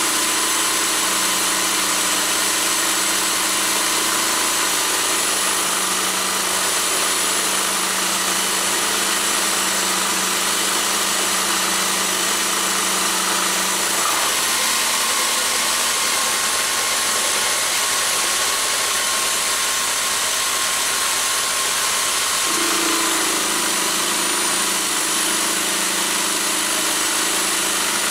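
Bosch electric drill running in a toolpost drill attachment, driving a 10 mm four-flute carbide end mill as it mills 316 stainless steel: a steady motor whine with cutting noise, its pitch shifting slightly about halfway through and again near the end.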